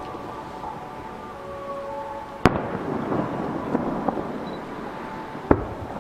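Aerial firework shells bursting: a sharp bang about two and a half seconds in and another near the end, each followed by a rolling echo with scattered crackles.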